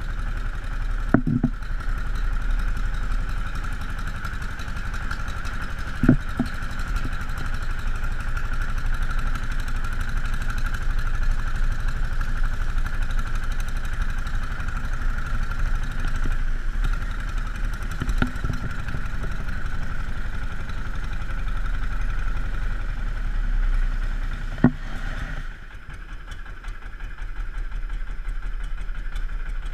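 Long-tail boat's motor running steadily while the boat moves along, with a few short knocks. About 25 seconds in it drops in level, throttled back, then slowly picks up again.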